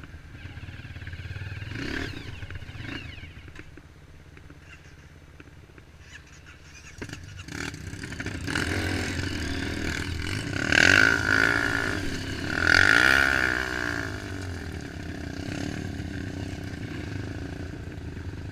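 Trail motorcycle engine running and revving on a dirt trail, loudest in two surges a little past halfway, with the revs rising and falling.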